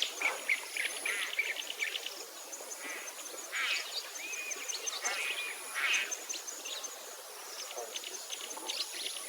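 Many birds calling and chirping at once: short, overlapping calls and trills, with no engine or motor sound beneath them.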